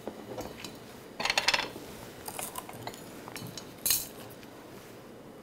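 A spoon clinking and scraping against a stainless steel bowl as sliced cucumbers are tossed with salt. There is a short clatter about a second in, a few lighter clinks after it, and a sharp click a little before the end.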